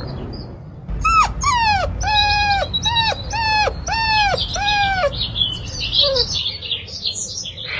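Dog giving a run of about seven short whining yelps, each cry sliding down in pitch.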